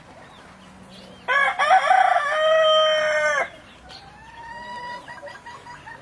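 A gamebird's loud, drawn-out call, about two seconds long. It starts a little over a second in, holds one pitch and drops at the end. A fainter, thin whistled call follows.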